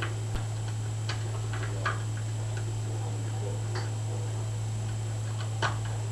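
Sparse small metallic clicks and ticks of a lock pick working the pins of a cross (cruciform) lock during picking, a few seconds apart, over a steady low hum.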